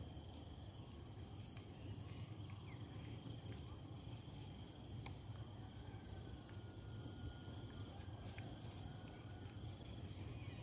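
Quiet high-pitched insect trill, broken into pulses of about a second each with short gaps, over a low steady hum, with a few faint clicks.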